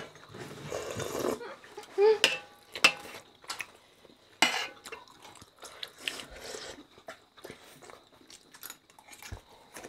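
Metal spoons clinking, tapping and scraping against steel plates and bowls as people eat, in scattered sharp clicks, the loudest nearly three seconds in.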